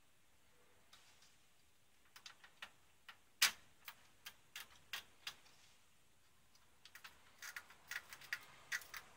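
Sharp clicks and taps of hands handling the metal and plastic parts of an opened Sony SLV-60HFBR VCR's tape mechanism. Scattered clicks start about two seconds in, with one loud click near the middle, and a quicker run of clicks comes near the end.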